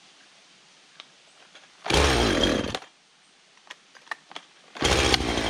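Two-stroke chainsaw being started: the engine fires for under a second and dies, there are a few light clicks, and then near the end it starts and keeps running.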